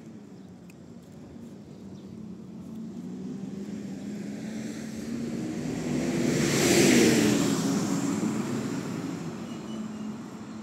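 Golden Dragon XML6121J city bus driving past, with a loud noise from its ZF Ecolife automatic gearbox over the engine. It builds as the bus approaches, is loudest about seven seconds in, then fades as it moves away.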